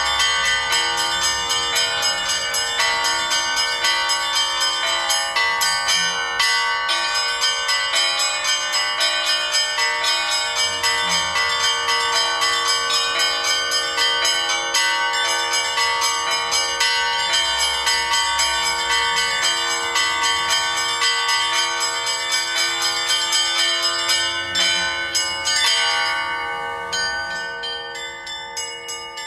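Bells ringing in a rapid, even run of strikes, about four a second, fading somewhat in the last few seconds.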